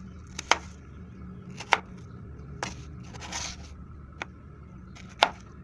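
Kitchen knife cutting raw potato slices into fry strips on a plastic cutting board: about five sharp knocks of the blade on the board, roughly a second apart, with a short scrape near the middle, over a low steady hum.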